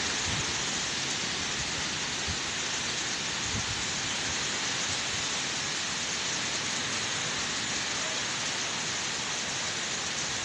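Strong typhoon wind blowing steadily through coconut palms and other trees, with rain, as an even unbroken hiss. A few low buffets of wind hit the microphone.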